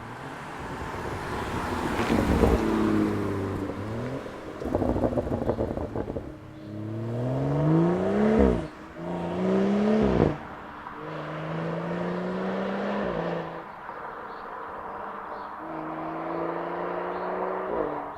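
BMW 335i's turbocharged straight-six running through a Remus full exhaust, revving up in several climbing pulls that each end in a sharp drop in revs. A burst of exhaust crackles comes about four to six seconds in.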